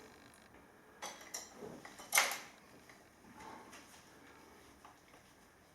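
A few light clicks and knocks from handling a hammer drill and its keyless chuck, the loudest about two seconds in.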